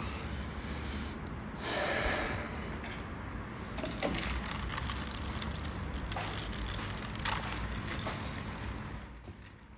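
A person breathing close to a phone microphone, with one loud breath about two seconds in, over rustling from handling the phone.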